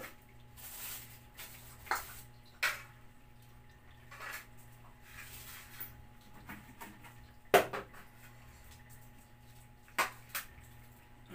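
A group of cats eating from a plastic feeding tray: soft wet lapping and chewing, broken by a handful of short sharp clicks and knocks against the tray, the loudest about seven and a half seconds in.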